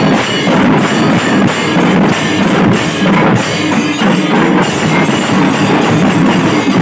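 A percussion band of barrel drums beaten with sticks and large brass hand cymbals clashing, playing loud, with a driving rhythm of evenly repeating strokes.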